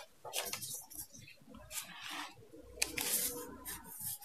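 Sheets of paper rustling and sliding as a graph sheet is handled over a bound record book: soft, scattered rustles, a little louder around the middle and near the end.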